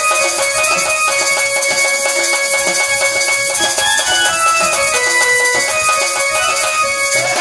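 Live Odia folk dance music: a melody of held notes stepping up and down, with a barrel drum and a rattle keeping the beat.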